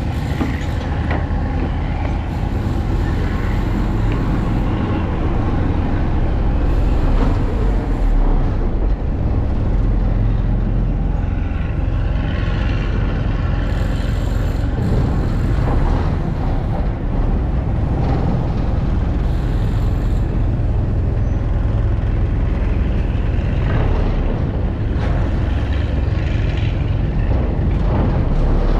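A heavy engine running steadily, a constant low hum under a wash of general city noise.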